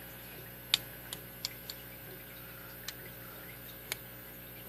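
A few scattered, light metallic clicks as a padlock and its lock mechanism are handled and worked, about six in all, irregularly spaced, the sharpest about a second in.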